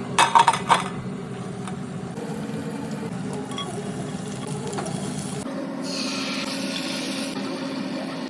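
Kitchen utensil clinking against cookware several times in quick succession near the start, then a steady hum with a soft hiss later on.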